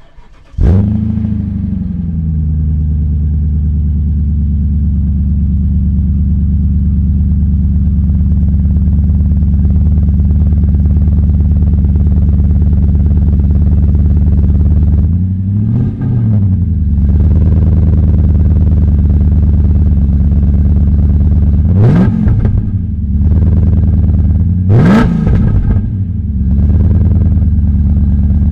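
Car engine starting up about half a second in, its speed flaring and settling into a steady idle. It is revved once slowly up and down about halfway through, then given three quick sharp throttle blips near the end.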